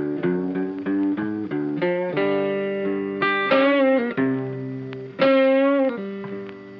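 Background music: a plucked-string melody of short notes, with two long held notes that waver in pitch, about three and five seconds in.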